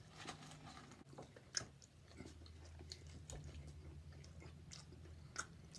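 Faint close-up chewing of a fast-food burger: soft wet mouth smacks and small clicks at irregular intervals, over a steady low hum.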